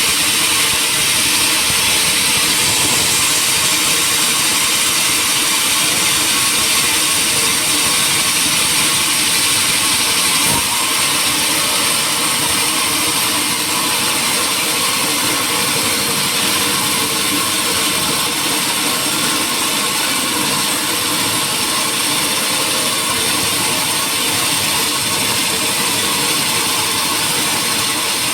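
Woodworking machinery running steadily: a loud, even, high-pitched noise with no change in pace, and one faint knock about ten seconds in.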